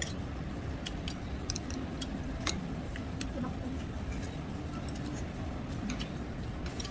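A steady low background hum with a faint murmur of voices, broken by scattered sharp clicks and ticks, one a little louder about two and a half seconds in.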